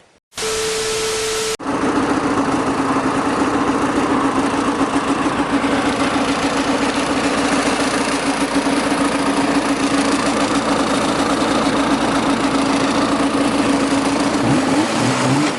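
A vehicle engine running steadily at one speed. Near the end its pitch begins to rise and fall. Just before it starts comes about a second of hiss with a steady hum.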